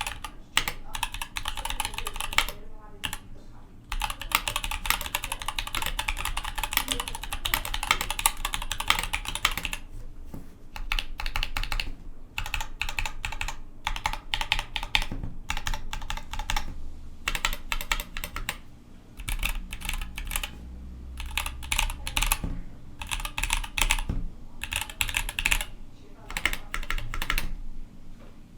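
Typing on a mechanical keyboard, a Dolch C.R. with Zealios V2 tactile switches and GMK keycaps: fast runs of keystroke clacks broken by short pauses.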